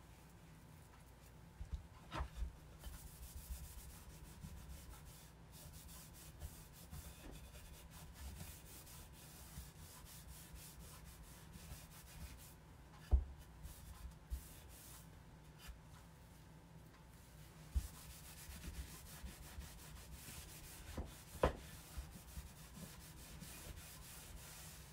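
Soft cloth rubbing paste wax onto a bare wooden cutout, a faint scrubbing hiss in spells, with a few light knocks as the wood is handled on the mat. This waxing prepares the raw wood before a transfer goes on.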